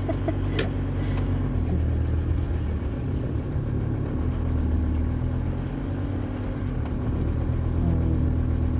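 Camper van's engine running steadily at low revs, heard from inside the cab while the van is slowly manoeuvred.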